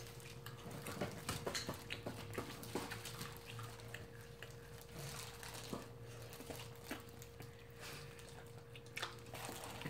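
Faint eating sounds of two people chewing fried chicken: irregular small mouth clicks and smacks with soft rustles, over a faint steady hum.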